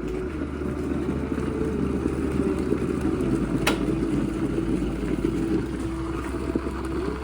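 Water heating toward the boil: a steady rushing, rumbling noise with a wavering hum, and one sharp click about three and a half seconds in.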